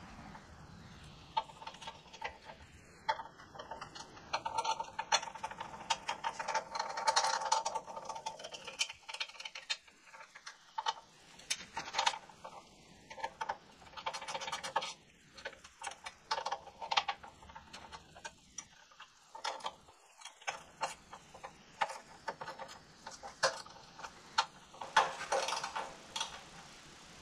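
Short, irregular runs of small ratcheting clicks and light metal clinks from hand work on the front of a riding lawn mower, most likely a ratchet or fastener being worked.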